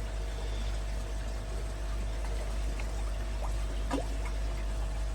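Koi pond water trickling over a steady low hum from the pond's pump.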